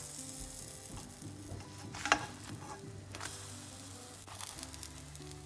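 Pancakes sizzling in a hot buttered frying pan while they are turned over with a spatula, with a sharp knock of the spatula on the pan about two seconds in.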